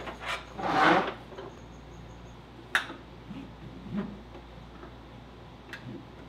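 Clinks and clicks of racing-harness metal hardware being handled and hooked onto the floor eye bolts. There is a louder scraping rustle about a second in and a sharp click near three seconds, then a few faint knocks.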